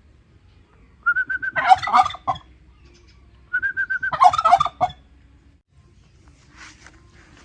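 Turkey gobbling twice, each gobble a short steady note breaking into a rapid rattling warble, about two and a half seconds apart.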